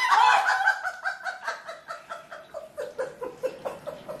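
People laughing hard in a long run of short ha-ha pulses, about four a second, growing quieter.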